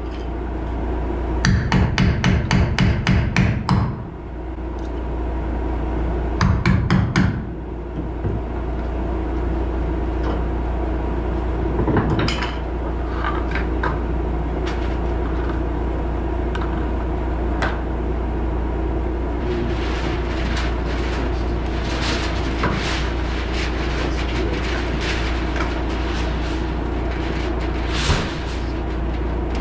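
Two bursts of rapid knocking from a power tool, a couple of seconds and then about a second long, followed by a steady low machine hum with scattered knocks and clatter.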